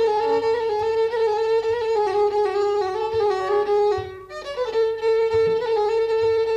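Violin playing an instrumental melody of long held notes with small slides and ornaments; the line breaks off briefly about four seconds in, then picks up again.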